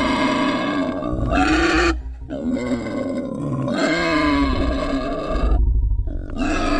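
An animal's long, wavering distress calls, broken by short pauses about two and six seconds in, with a low rasping rumble underneath.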